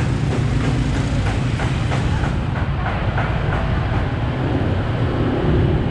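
Steady low rumble of passing street traffic, with a few faint light taps in the first half.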